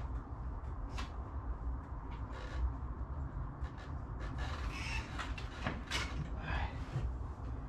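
Scattered light clicks and knocks of hand work on a snowmobile's rear suspension as it is fitted to the tunnel, over a low steady rumble.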